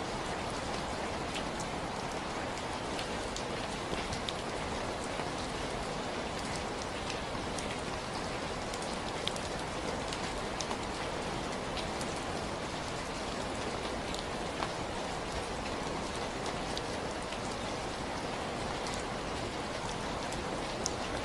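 Steady rainfall: an even hiss of rain with many small, sharp drop impacts scattered through it.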